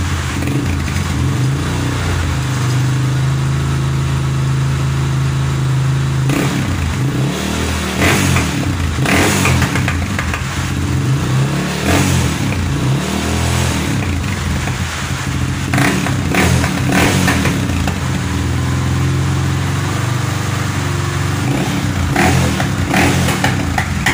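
Yamaha Scorpio Z 225's single-cylinder four-stroke engine running through an aftermarket 'bobok' muffler, settling at idle, then blipped on the throttle several times so the revs rise and fall. Sharp popping cracks come from the exhaust on some of the blips.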